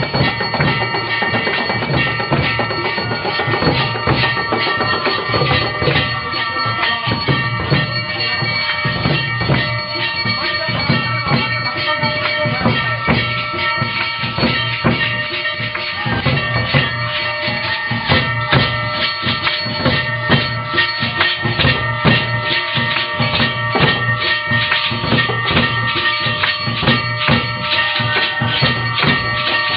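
Music: fast drumming over steady held instrumental tones, the drum strokes growing denser about halfway through.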